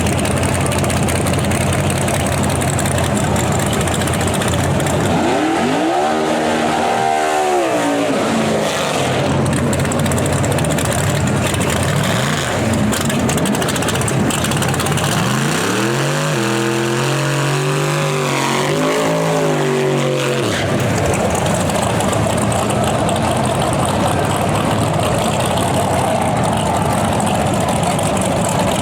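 Drag-race car engines idling steadily, revved twice: a single rise and fall about a fifth of the way in, and a longer run of wavering revs a little past the middle.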